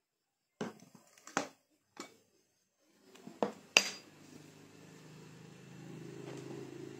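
A glass teapot being handled and set down on a wooden table: a handful of short knocks and clinks, the loudest a sharp ringing glass clink a little past halfway. A faint low hum follows.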